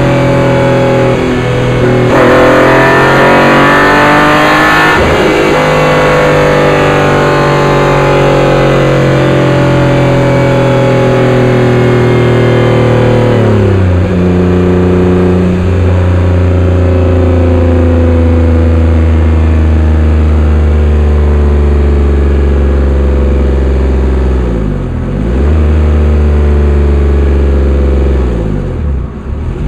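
Honda NSX's 3.2-litre V6 running under load, heard from inside the engine compartment under the rear glass hatch. It pulls harder and brighter for a few seconds near the start, then the pitch sinks slowly, drops suddenly about halfway through, and settles into a lower, steady drone.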